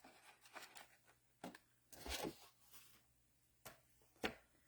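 Near silence broken by a few faint, brief rustles and taps of paper and cardstock being handled.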